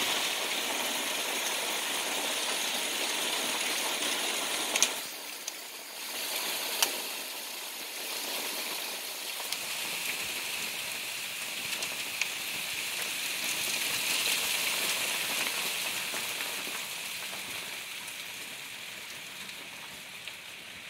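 Hail falling steadily, a dense hiss of pellets striking the ground and nearby surfaces, with a few sharp ticks from close impacts. It eases briefly about five seconds in, builds again, and thins toward the end.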